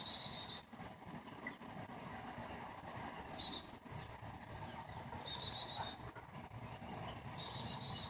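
A small songbird singing in short repeated phrases, about four of them some two seconds apart. Each phrase is a quick falling sweep followed by a brief high trill, over a low background rumble.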